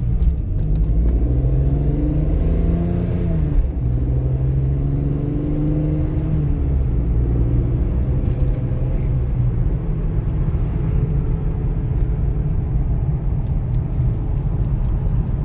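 BMW M3 engine and road rumble heard inside the cabin while driving. The engine note rises over the first few seconds, drops sharply about three and a half seconds in, then rises again and holds steady.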